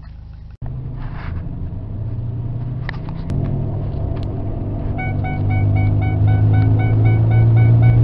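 Cab-interior running noise of a 2002 Ford Ranger 4x4 on a test drive: a low drone that grows louder as the truck gathers speed, the front-end howl of a failing wheel bearing. From about five seconds in, a rapid repeating beep sounds over it.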